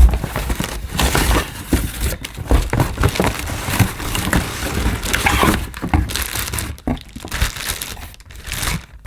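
Packaging crinkling and rustling, with irregular knocks and scrapes, as a handheld vacuum cleaner is pulled out of its box. The handling sounds thin out near the end.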